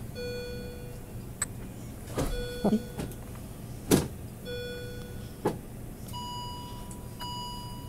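Premature newborn hiccuping: several short, sharp hiccups about a second and a half apart, the loudest about four seconds in. Hospital monitor tones repeat every couple of seconds behind them, and a higher, single-pitched beeping starts about six seconds in.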